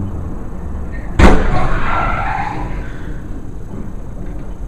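A car crashing: a single loud impact about a second in, followed by a noisy slide that fades over the next two seconds, over steady vehicle noise.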